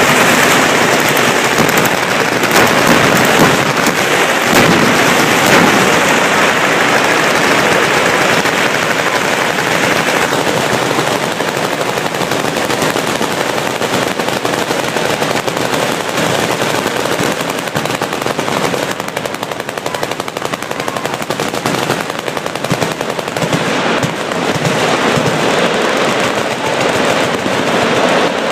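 Machine guns firing continuously in dense, overlapping bursts of automatic fire with no pause between reports, dipping a little in loudness midway.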